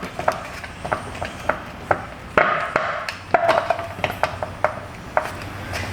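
Irregular sharp clicks and light knocks, a couple a second, from hand tools and metal A/C line fittings being worked loose.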